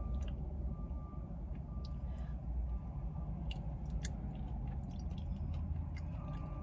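Close mouth sounds of chewing a spoonful of soft KFC Famous Bowl food, with small wet clicks and smacks, over a steady low hum inside a car. A faint high beep repeats about once a second.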